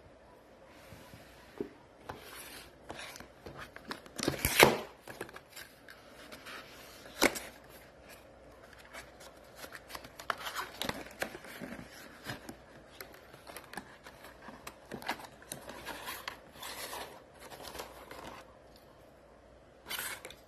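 Paperboard packaging being handled and opened by hand: box flaps pulled open and paper wrapping rustling and tearing, with scattered sharp clicks and knocks. The loudest knocks come about four and a half and seven seconds in.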